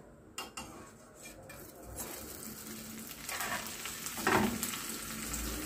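Buttered bread slices frying in a hot pan as they are flipped with metal tongs: a few light clicks, then a steady sizzle that swells from about two seconds in.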